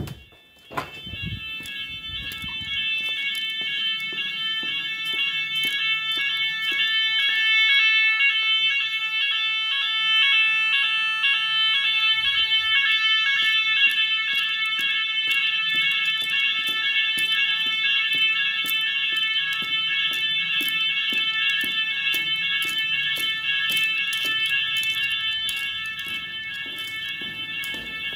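Roshni fire alarm sirens sounding the evacuation signal of a school fire alarm system. They come on about a second in, just after a click, as a pulsing high-pitched multi-tone alarm. It grows louder over the next several seconds and then holds steady.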